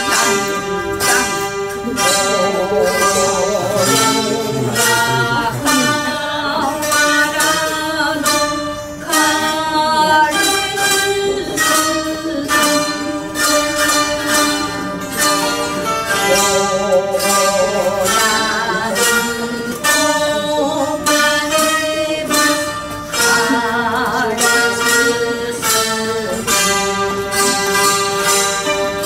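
Taishōgoto ensemble playing a slow melody together, with plucked metal strings, and a voice singing along.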